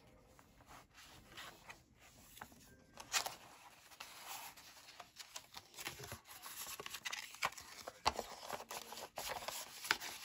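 Paper pages of a handmade junk journal being turned and handled: rustling and crinkling, with a few sharper rustles about three seconds in, near eight seconds and near the end.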